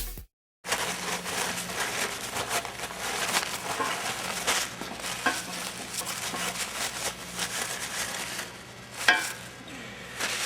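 Handling noise from the engine teardown: scattered light clicks and rustling as parts are moved, over a steady low hum, with a sharper click about nine seconds in.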